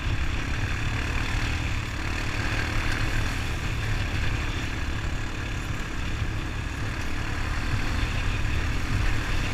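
Honda ATV's single-cylinder four-stroke engine running at a steady speed, a constant low hum without revving.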